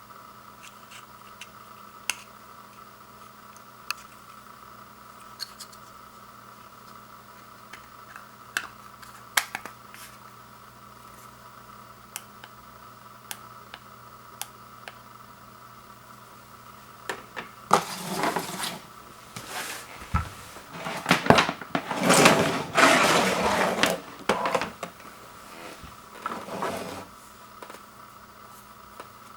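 Unpacking noise: scattered light clicks over a faint steady hum, then from about 18 to 25 seconds in loud rustling and scraping as the doorbell kit's packaging is handled, with a shorter bout near the end.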